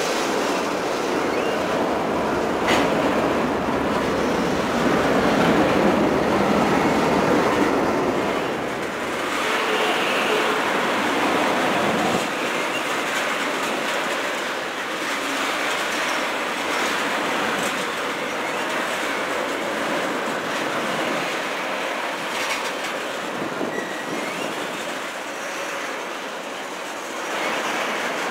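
Crude-oil tank cars of a freight unit train rolling past with steady wheel-on-rail noise and a few clicks. The sound is louder and heavier in the first twelve seconds or so, then eases a little.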